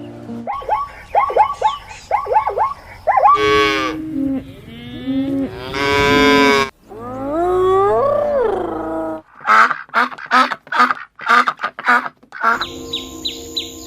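A run of farm-animal calls one after another, with cattle mooing in long rising-and-falling calls in the middle, short repeated calls before and after, and quick rhythmic high chirps near the end, over background music.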